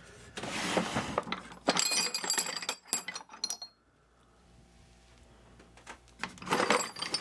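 A wooden drawer slides open, then metal bar stock inside clinks and rings as aluminium and brass rods are shifted against each other. A brief scraping shuffle follows near the end.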